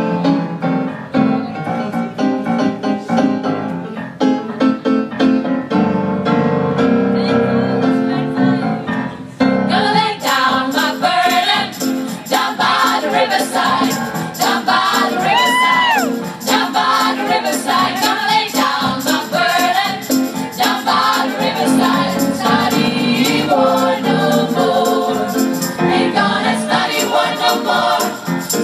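Female vocal ensemble singing together in harmony, amplified through microphones. About ten seconds in the singing grows fuller and brighter, and near the middle one high voice slides up and back down.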